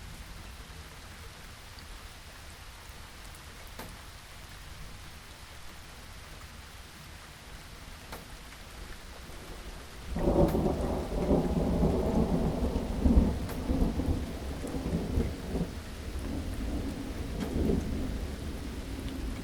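Steady rain falling, with a loud rumble of thunder breaking in suddenly about halfway through and going on, rising and falling, to the end.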